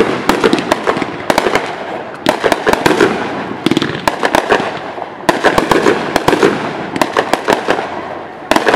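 Aerial fireworks bursting: volleys of sharp bangs and rapid crackling pops that come in waves every second or so.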